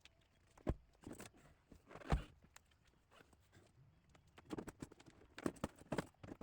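Irregular knocks and clicks from hand work on the van, parts and tools being handled: two solid knocks early, then a quick run of them toward the end.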